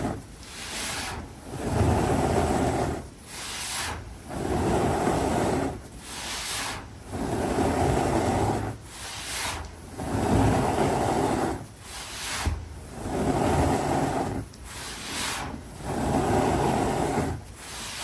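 Compressed baking soda blocks crushed by hand, a squeaky crunch repeating in a steady rhythm of roughly one squeeze every second and a half.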